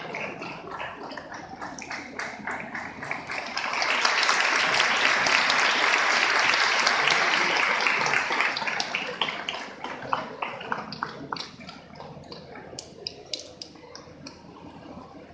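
Crowd of students applauding. The clapping swells to its loudest a few seconds in, then dies away after about ten seconds to a few scattered claps.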